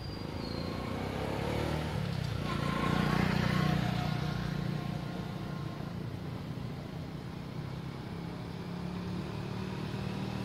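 A motor vehicle passing by, growing loudest about three to four seconds in, over a steady low engine hum.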